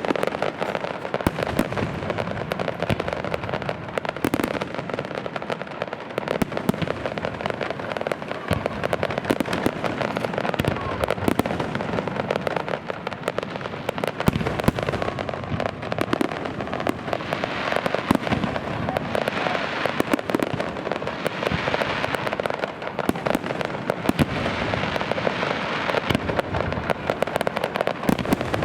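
Fireworks display: a dense, unbroken crackle of many small sharp reports.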